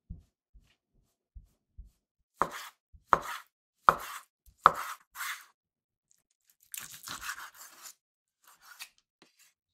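A kitchen knife cuts squid on a wooden cutting board. There are light taps at first, then four sharp chops about three-quarters of a second apart, each trailing into a short slicing scrape as the body is cut into strips. About seven seconds in comes a longer stretch of scraping cuts as the tentacles are cut.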